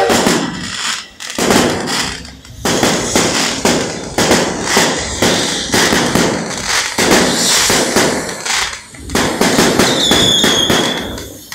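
Fireworks going off in quick succession: a dense run of loud bangs and crackling, with a brief high whistle near the end.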